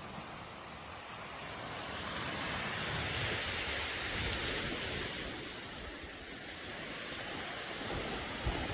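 Outdoor wind and surf noise: a wide wash of sound swells up to a peak about four seconds in and then eases off, while gusts buffet the microphone.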